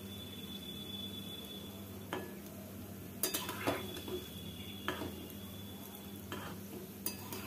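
Fritters deep-frying in hot oil in a metal kadai, a steady sizzle, while a metal spatula turns them, clinking and scraping against the pan several times in the second half.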